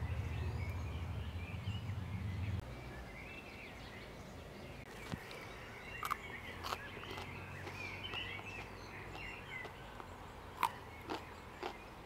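Small birds singing and chirping faintly in the background, with a few crisp crunches from biting and chewing a raw green plant stalk. A low hum fills the first couple of seconds and cuts off abruptly.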